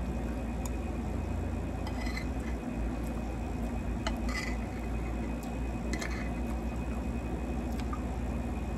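A metal fork clinks and scrapes against a ceramic plate a few times as food is scooped up, along with soft chewing sounds, over a steady low hum.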